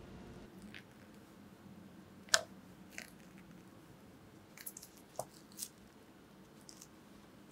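Close-up handling of thick whipped cream: a silicone spatula scraping and scooping it into a piping bag, with scattered sharp taps and clicks. The loudest is a single knock about two seconds in, and plastic crinkles and clicks follow near the end as the piping bag is twisted shut with a clip.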